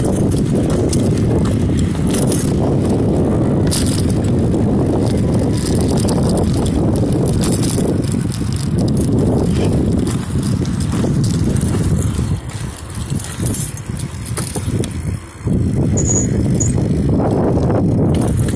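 Wind rumbling on the microphone of a phone carried on a moving bicycle, mixed with tyre and road noise. It eases off for a few seconds about two-thirds of the way through.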